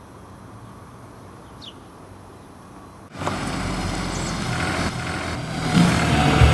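A motor vehicle running, coming in suddenly about three seconds in after a quiet stretch and growing a little louder toward the end.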